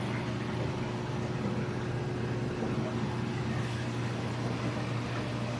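Steady machine hum of a running reef aquarium's equipment, a constant low drone with a soft even hiss over it.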